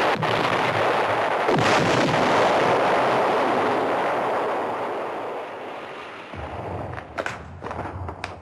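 Artillery shell explosion: a loud blast whose roar slowly dies away over several seconds, followed by a few sharp cracks near the end.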